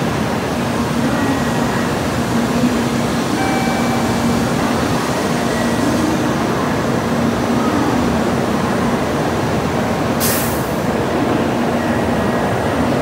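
Steady mechanical hum of a Shinkansen station platform, with a low drone throughout. A short, sharp hiss comes about ten seconds in.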